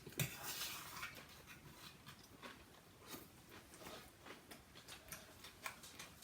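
Faint chewing of food close to the microphone, with small irregular mouth clicks.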